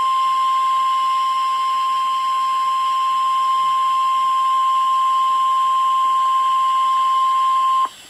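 NOAA Weather Radio warning alarm tone (1050 Hz) announcing an Emergency Alert System activation for a severe thunderstorm warning: a single loud, steady, high-pitched tone that stops abruptly just before the end, played from an online stream through a computer speaker.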